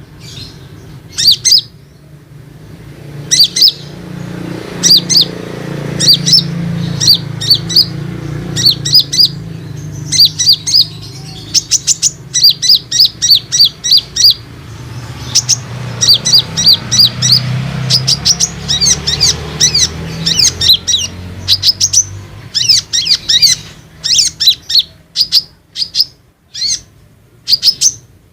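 Konin (kolibri ninja) sunbird singing: rapid runs of high, sharp chirps in short clusters, used as a lure song to set other konin calling. A low steady hum lies beneath the song through the middle.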